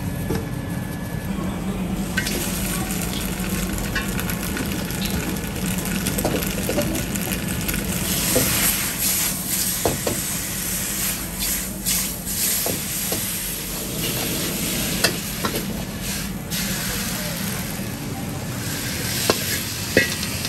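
Kway chap rice-noodle sheets sizzling and being stir-fried in a hot carbon-steel wok, the hiss strongest about eight to thirteen seconds in, with sharp clicks of the utensil against the wok over a steady low hum.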